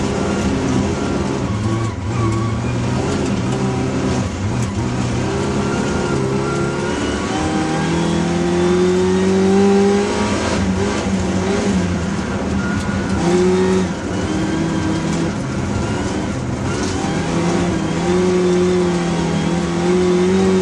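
Hillman Imp's rear-mounted four-cylinder engine heard from inside the cabin while racing on ice. It revs up in pitch under acceleration and falls back at each lift or gear change, several times over.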